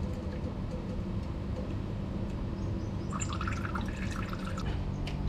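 Used engine oil trickling in a thin stream from a scooter's drain hole into a plastic pan of old oil, draining out after the bike is tilted, over a steady low hum.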